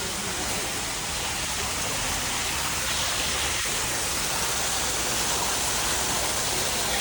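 Steady rush of falling water from an artificial waterfall.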